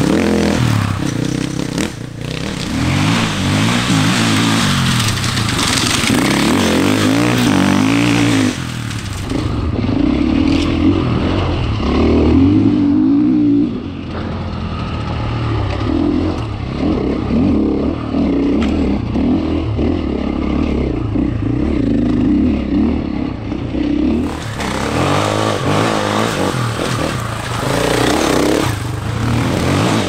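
Husqvarna FE 450 enduro bike's 450 cc single-cylinder four-stroke engine being ridden hard off-road, its note rising and falling as the throttle opens and closes and the rider shifts. Through the middle stretch the engine is heard close up from an onboard camera.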